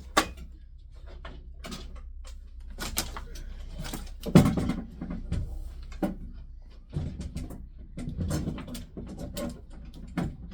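Irregular knocks, clicks and scrapes of a fire alarm panel being handled and held against the wall while its mounting holes are lined up, the loudest knock about four seconds in.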